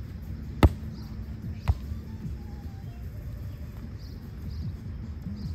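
A volleyball being struck twice, about a second apart, as two sharp slaps of contact on the ball, the first loud and the second softer.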